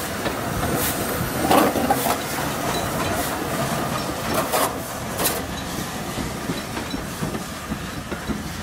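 LNER B12 4-6-0 steam locomotive and its coaches rolling past, with a steady hiss of steam and the rumble of wheels. Irregular sharp clanks and clicks come from the wheels and the rail joints, the loudest about a second and a half in and again around four and a half to five seconds in.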